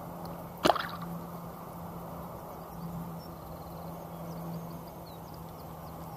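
A released barbel kicks off in shallow river water: one sharp splash of its tail on the surface about a second in, over a steady low background noise.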